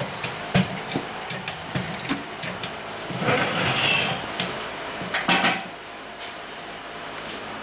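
Metal clicks and clanks of a floor jack and jack stands being worked to lower the rear of a car, with two brief rushing noises about three and five seconds in.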